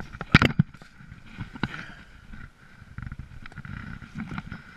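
Snowshoes tramping through deep, soft snow: low muffled crunching and shuffling, with a cluster of sharp knocks about a third of a second in and another single knock a little later.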